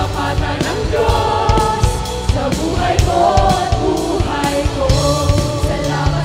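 A mixed vocal group singing a Tagalog worship song in harmony into microphones, over a band backing with steady drum beats and bass.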